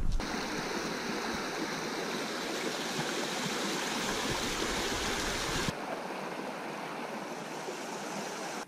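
A mountain river (the upper Auspiya) running over stones, with a steady rushing sound. It drops suddenly to a quieter level about six seconds in.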